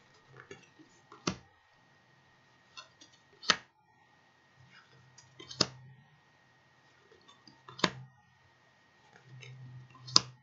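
Tarot cards being flipped through one by one: each card is slid off the deck and laid down with a sharp tap, about one every two seconds, five in all, with soft sliding rustles between.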